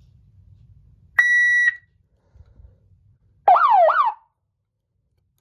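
Ademco 702 security-system siren going off in short test blasts: a half-second steady high tone, then about two seconds later a quick wail that sweeps up and down twice in under a second.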